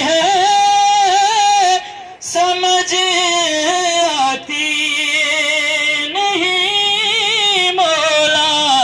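A solo voice singing the drawn-out opening notes of an Urdu devotional song, holding long wavering notes with short breaks about two and four seconds in.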